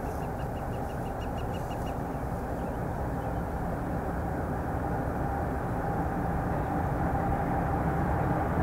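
Canadian Pacific freight train approaching, its rumble growing steadily louder, with a steady tone held above it. A run of faint quick ticks, about five a second, stops about two seconds in.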